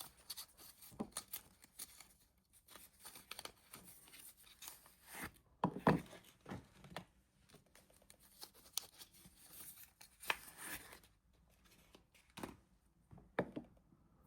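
Soap packaging being torn open and unwrapped by hand: irregular crinkling and tearing of the wrapper with scattered sharp crackles, loudest about six seconds in.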